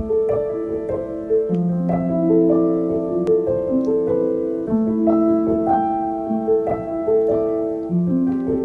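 Background piano music: a gentle melody of struck notes, several sounding together and each fading slowly.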